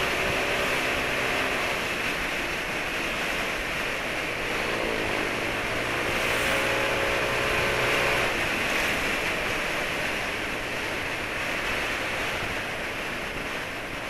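Wind rushing over the microphone on a moving motorbike, with the bike's engine running faintly underneath; the engine's pitch rises about five seconds in as it speeds up.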